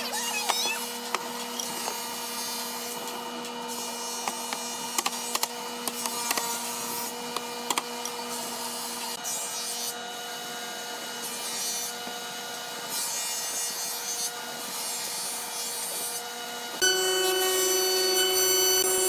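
Wooden cabinet door parts knocking and rubbing as they are handled and fitted together, with scattered sharp wooden clicks over a steady machine hum. Near the end the hum changes abruptly to a louder one with higher steady tones.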